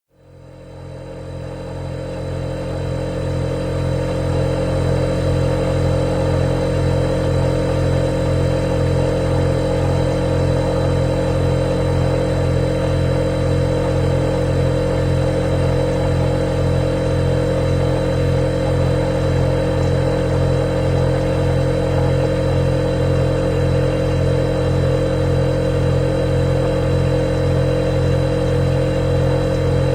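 Refrigerator running with a steady, loud motor hum, a thin high tone above it. The sound fades in over the first couple of seconds, then holds unchanged.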